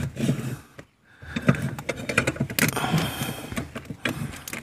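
Metal clicks and clatter of a stainless-steel clutch pedal lock being handled and shifted against the clutch pedal, with a brief silence about a second in.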